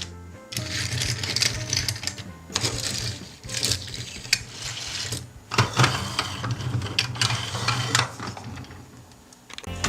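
Irregular clicking and rattling of small hard objects, over a steady low hum that fades out near the end.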